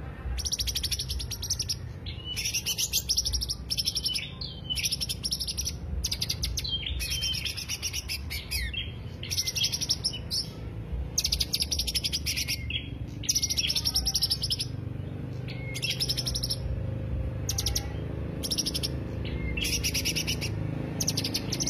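Green leafbird (cucak hijau) singing: a run of fast, high trilled phrases, each about a second long, with short gaps between them.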